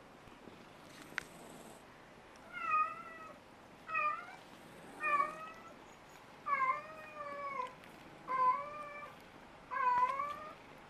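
Domestic cat meowing repeatedly, six meows about a second or so apart, the later ones drawn out and falling in pitch. A single faint click comes about a second in.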